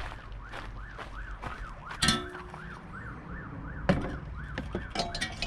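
A siren wailing quickly up and down, about three cycles a second, stopping shortly before the end. Two sharp metal clanks with a brief ring, about two and four seconds in, as the steel bull bar is handled against the car.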